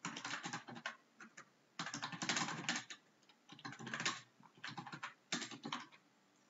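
Typing on a computer keyboard: clusters of keystrokes in several bursts with short pauses between them, stopping about six seconds in.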